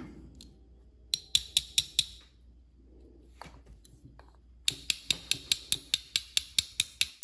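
Sharp taps on a vintage Omega caliber 551 watch movement: a few scattered ones about a second in, then a fast, even run of about six a second near the end. The tapping is meant to free a balance cock held tight on its steady pins.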